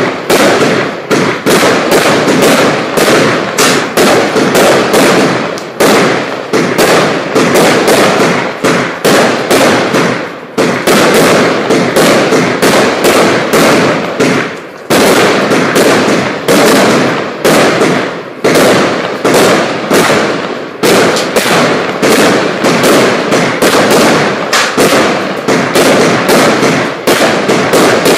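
Celtic Fireworks Golden Dragon, a 100-shot 20mm firework cake, firing its shots one after another in a loud, steady run of sharp bangs, a couple or more a second, with only a brief let-up twice.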